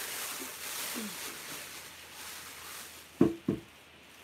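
Paper rustling as a glass bowl is unwrapped from its packing paper, then two sharp knocks of the glass bowl, about a third of a second apart, each with a short ring; the knocks are the loudest sounds.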